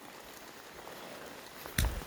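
Rain falling steadily, a faint even hiss, with one sharp thump near the end.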